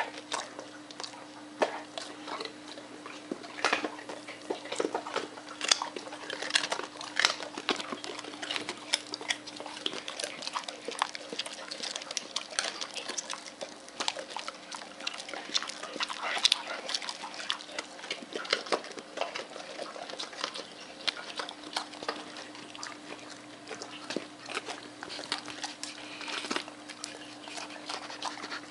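Dogs crunching and chewing raw carrot pieces: irregular, closely spaced crunches and mouth clicks that keep on throughout.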